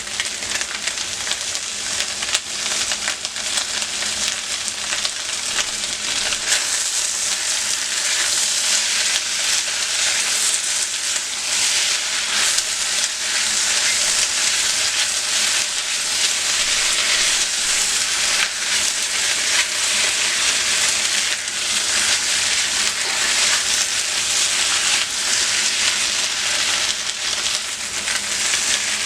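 Food frying in hot oil in a pan: a steady, dense sizzle with fine crackling as it browns.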